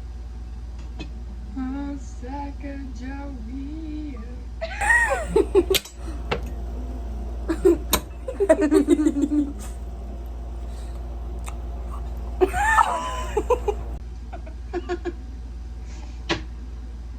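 People giggling, laughing and letting out high, squealing vocal sounds in two bursts, with a run of quick laughter pulses between them and a few sharp clicks, over a steady low hum.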